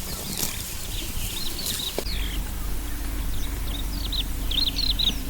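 Small birds chirping in quick runs of short, high notes over the steady low hum of an idling engine.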